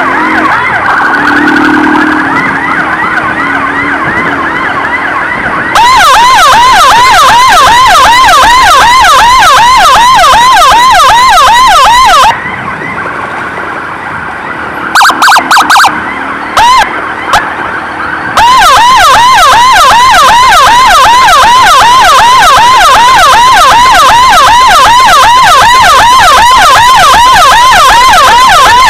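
An emergency siren sounding loud and close in a fast yelp, a rising-and-falling sweep several times a second. In the first few seconds it holds a slower wavering tone instead. For about six seconds in the middle it drops away except for a few short blasts, then resumes the steady yelp.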